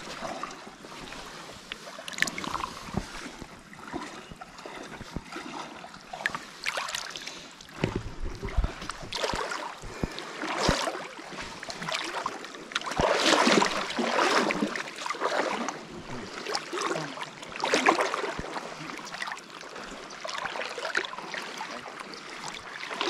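Water splashing and sloshing in irregular surges as someone wades through a shallow river, loudest about halfway through.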